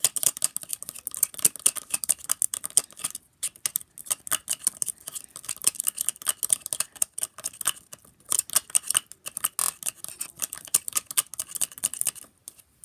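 A mixing tool stirring thickening soap-and-salt slime in a mixing bowl: fast, continuous scraping and clicking against the bowl, with a few brief pauses.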